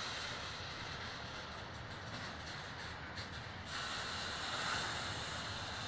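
Double-stack intermodal freight train's well cars rolling past on steel rails: a steady rumble and hiss of wheels on track that grows brighter about two-thirds of the way through.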